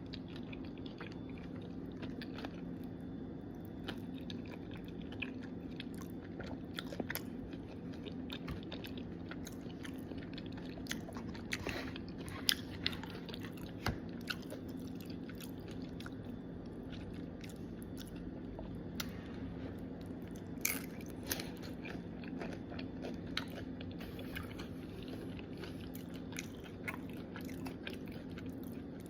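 Close-up chewing of crunchy Doritos tortilla chips: irregular crisp crunches and bites, a few of them louder, over a steady low hum.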